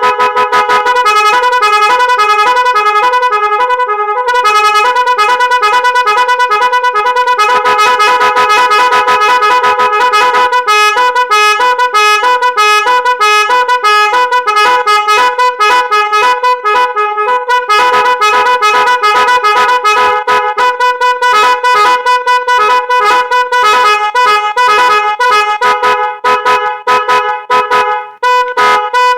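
Loud electronic musical horn for tractors and trucks playing a fast tune of short, pulsing, quickly changing notes. The notes become choppier, with brief gaps, in the last few seconds.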